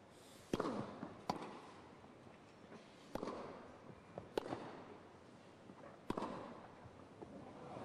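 Tennis racket strings striking the ball in a rally, five sharp pops one to two seconds apart, each with a short ring after it.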